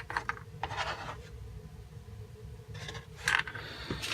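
Plastic model kit parts and packaging being handled, rubbing and scraping in two short bursts, about half a second in and again near three seconds.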